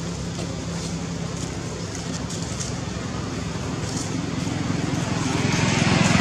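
A motor vehicle's engine running steadily as a low hum, growing louder near the end.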